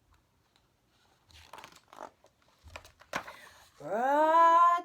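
A voice acting out the wind-up to a sneeze: faint breathy sounds and a click, then near the end a long, loud 'aaah' that rises in pitch and is held.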